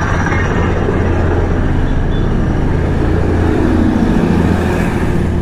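Royal Enfield Hunter 350's single-cylinder engine running steadily at low speed on a rough road, heard from on the bike, with general road and traffic noise around it.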